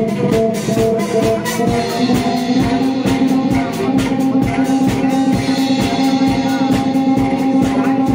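Upbeat band music from drums, guitar, bass and Cretan lyre: a steady drum beat under the band, with long held notes coming in about two seconds in.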